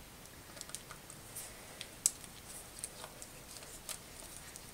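Faint scattered clicks and light scraping of a screwdriver turning screws out of a Mac Pro hard-drive carrier, with one sharper click about two seconds in.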